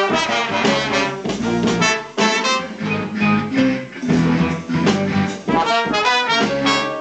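Live band of saxophones, trumpets and electric guitars playing together in short rhythmic phrases, with a chord held near the end.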